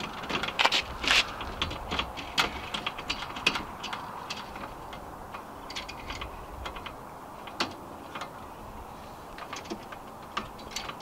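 Irregular metal clicks and ticks of hand tightening on the tension-held clamp mounts of a Prime Design rear-door ladder. They come thick and fast for the first few seconds, then more sparsely.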